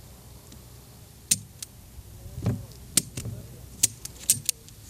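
Swingline staple gun snapping shut over and over: a series of about eight sharp metallic clicks, irregularly spaced and coming faster in the second half.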